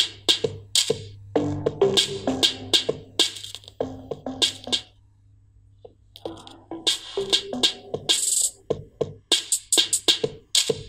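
Electronic music with a drum-machine beat played through a small speaker driven by a homemade TEA2025 amplifier. About five seconds in the music drops almost to nothing for about a second, then the beat comes back.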